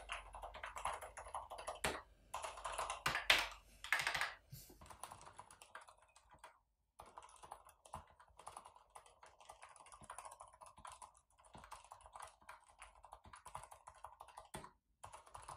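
Continuous rapid typing on a Mars Pro Vesta mechanical keyboard fitted with Cherry MX Silent Red low-noise linear switches. The keystrokes are louder for the first four seconds or so, then quieter, with a brief pause about seven seconds in.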